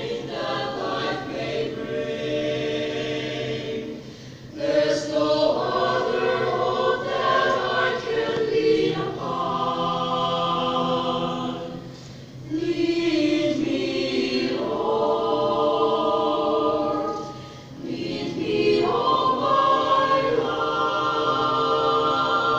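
A choir singing a hymn in long held phrases, with three short breaks between phrases, about four, twelve and eighteen seconds in.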